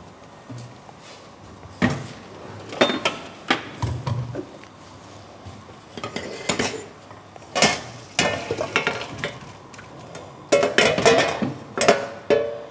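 Pots, pans and cooking utensils clattering and clinking on a stovetop in irregular knocks, with a busier run of clinks near the end.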